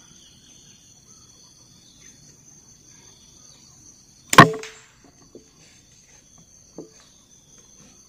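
A single shot from a multi-pump pneumatic air rifle charged with five pumps, a sharp crack about halfway through with a short tail. Insects drone steadily in the background, and two faint ticks follow the shot.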